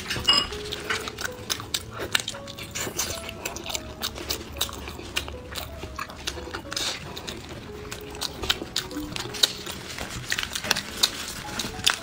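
Background music with a simple melody, over close-up wet eating sounds: many sharp clicks and smacks of chewing, and gloved hands squishing sauce-covered lettuce.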